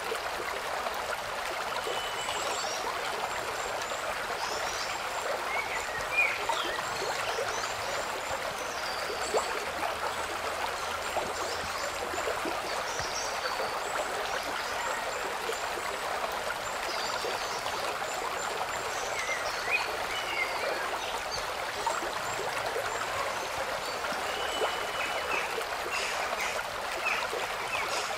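Steady rush of flowing stream water, with scattered short high bird chirps over it.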